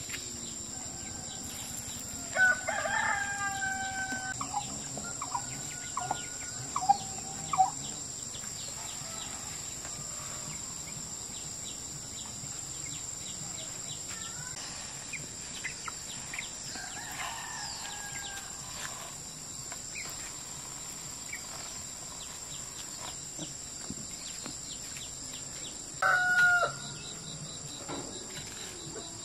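A rooster crowing several times, each call a pitched, held cry lasting one to two seconds, with a short loud call near the end. A steady high-pitched insect drone runs underneath.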